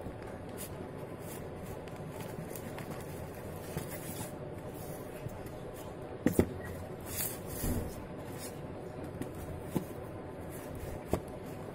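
Cardboard shipping box being handled and turned over on a hard tabletop: light scraping and rustling, with a few knocks as it is set down, the sharpest about six seconds in, over steady background noise.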